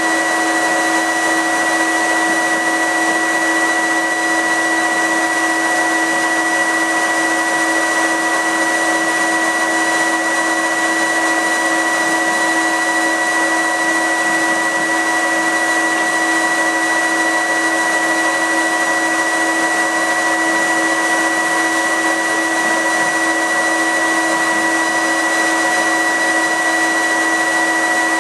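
Fume extraction filter unit of a CO2 laser cutter running loud and steady: a constant high whine over a hiss.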